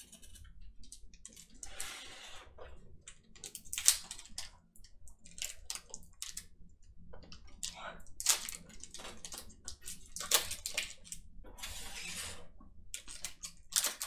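A trading card pack being torn open and its cards handled: short crinkling rustles of the wrapper and scattered sharp clicks, with several louder crinkles spread through.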